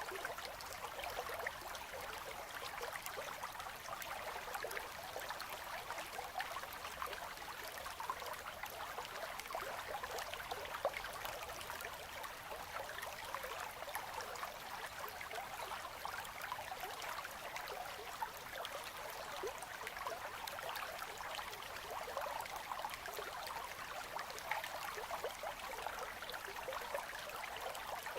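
A gently flowing river running between ice: a steady, even rush and babble of water with fine bubbling.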